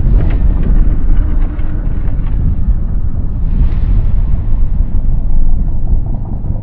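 Sound-designed giant-monster effect: a loud, deep rumble that starts suddenly, with a brighter surge about three and a half seconds in.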